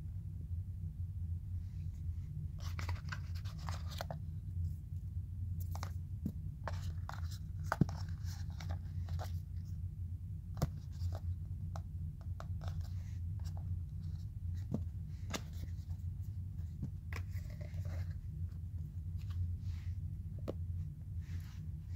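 Handling noise of a new smartphone and its cardboard packaging: irregular scratches, rustles and small clicks of fingers on glass, plastic and card, over a steady low hum.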